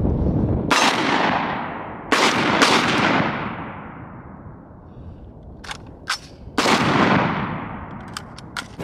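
Micro AR-style pistol with a 5-inch barrel fired one-handed in single shots. One shot comes about a second in, two follow close together about two seconds in, and one more comes near seven seconds in, each trailing off in a long echo. A few fainter sharp clicks come between the later shots.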